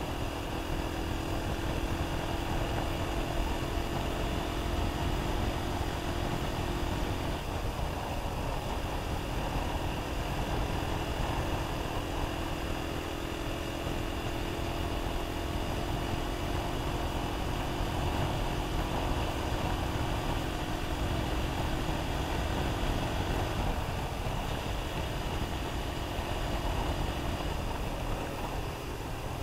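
Enduro motorcycle engine running at a steady road cruise, with a heavy rumble of wind and road noise on the microphone. The engine note shifts briefly about seven seconds in and again around twenty-four seconds in.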